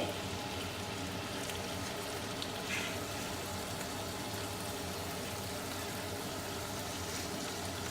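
Chicken pieces sizzling steadily in a pan of hot avocado oil, with a short light knock about three seconds in.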